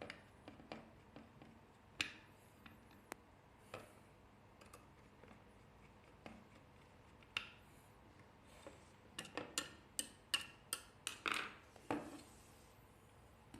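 Small sharp clicks and taps from hands working on electronic parts during a motherboard swap. They come one at a time at first, then in a quick run of about a dozen clicks over the last few seconds.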